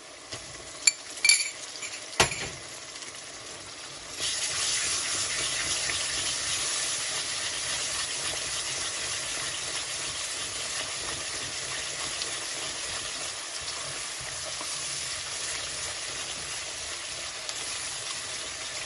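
A few sharp metal clinks against the kadai, then about four seconds in a loud, steady sizzle as yogurt fries in the hot onion-tomato masala while it is stirred with a steel ladle.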